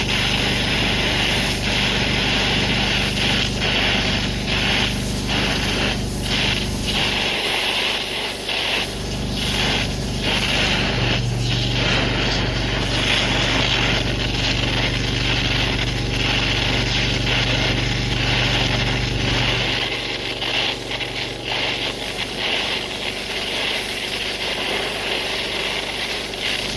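Torch flame hissing steadily as it heats a bearing's inner race to expand it for fitting. A pressure washer runs underneath with a low hum that fades out briefly about seven seconds in and again about twenty seconds in.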